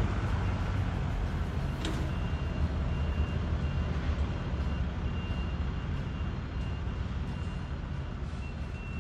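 Steady low rumble of vehicle engines in the street, with a sharp click about two seconds in and a faint high beep repeating in short pulses from then on.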